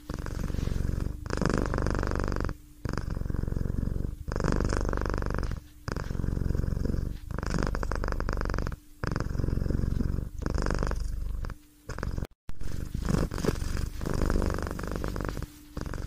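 A cat purring close up, in an even rhythm of pulses about every one and a half seconds, each broken by a short pause as the cat breathes in and out.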